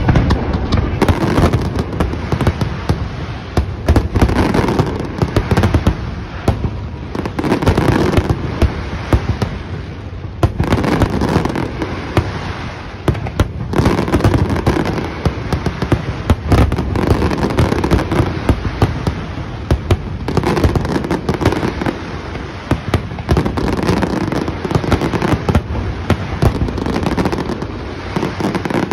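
Fireworks finale: a dense, unbroken barrage of aerial shells launching and bursting, with rapid, overlapping bangs and no pause.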